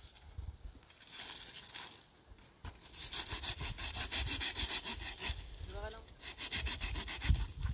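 Saw cutting through firewood in rapid back-and-forth strokes, with a short break about five and a half seconds in.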